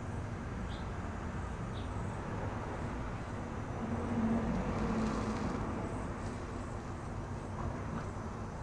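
Steady outdoor background noise coming in through an open door, with a vehicle going past that is loudest about four to five and a half seconds in.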